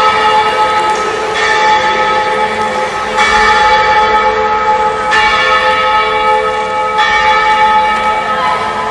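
A church bell tolling, struck four times about two seconds apart, each stroke ringing on into the next.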